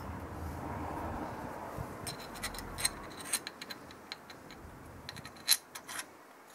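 Irregular metallic clicks and light taps of hand and tool on metal while a new water pump is fitted to a Corsa 1.2 16v engine, with the sharpest tap about five and a half seconds in. A low hum stops about three seconds in.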